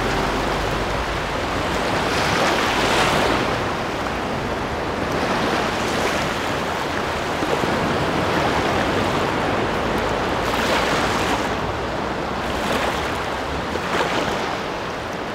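Sea waves washing onto a sandy shore, a steady wash that swells and falls back every few seconds.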